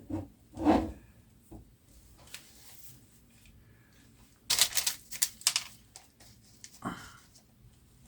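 Light clicking and rattling of small parts being handled during reassembly, with a soft thump near the start and a quick cluster of sharp clicks about halfway through.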